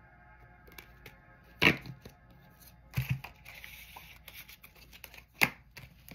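A deck of oracle cards being handled and shuffled, with three sharp snaps about one and a half, three and five and a half seconds in and a short rustle after the second. Soft sustained background music plays underneath.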